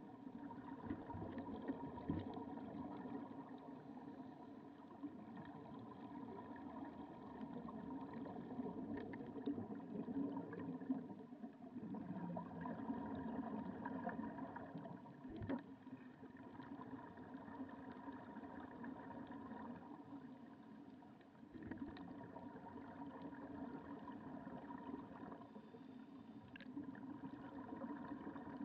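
Faint underwater sound heard through a camera's waterproof housing: a steady muffled motor hum carried through the water, with a few faint clicks and one short knock about halfway through.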